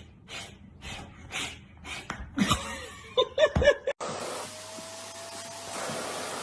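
A person laughing in breathy, rhythmic bursts, rising into a few pitched 'ha' sounds; about two-thirds of the way through it cuts off abruptly to a steady hiss with a faint held tone.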